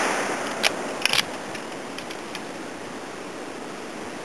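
Fading echo of a Ruger Model 77 .30-06 rifle shot, then several sharp metallic clicks about half a second to a second in as the bolt is worked, with fainter clicks after.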